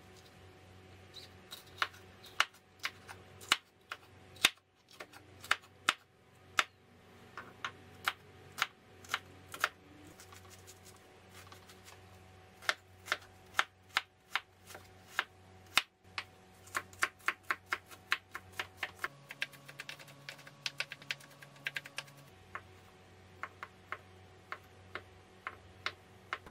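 Chef's knife chopping on a wooden cutting board: a run of sharp, uneven knocks as vegetables and sausage are cut, with a quicker burst of chopping past the middle.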